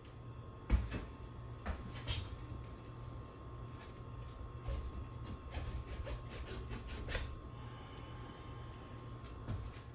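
Scattered light clicks and knocks from tools and parts being handled, the sharpest a little under a second in, over a steady low hum.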